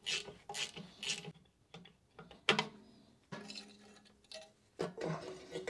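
Hand tools working the rusty drum-brake hardware of a Citroën Mehari rear axle: a ratchet and pliers on the brake shoes and springs, giving a string of uneven metallic clicks and short scrapes.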